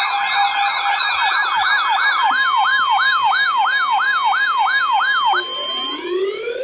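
Electronic siren tones. Several layered tones waver quickly, then settle into a yelp that sweeps up and down about three times a second, and a rising sweep takes over near the end as the level drops.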